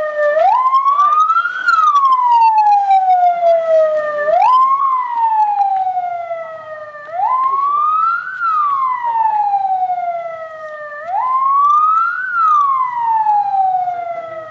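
Wailing siren: a loud tone that climbs in pitch over about a second, then sinks slowly over about three, repeating four times.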